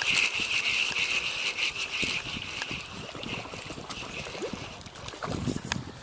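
River water running, with irregular small knocks and splashy noises while a hooked chub is played and reeled in. A steady hiss fades out about two seconds in.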